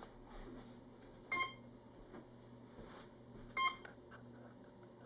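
A motor running with a faint steady hum, giving a short high-pitched chirp about every two seconds, twice here.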